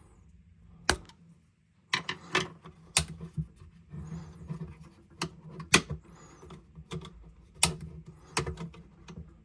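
Irregular sharp clicks and taps of a Philips espresso machine's plastic brew unit being handled and turned while grease is brushed onto its mechanism, about a dozen hard knocks over several seconds.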